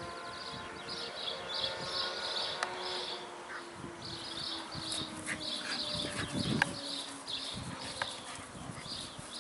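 A high-pitched chirping repeats a few times a second in the background, over the faint scuffling of two Shetland Sheepdogs play-wrestling on grass, with a brief low rumble about six seconds in.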